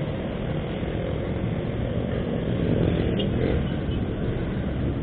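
Honda automatic scooter's engine and road noise as it rides off through city traffic, a steady low rumble that swells a little about two to three seconds in.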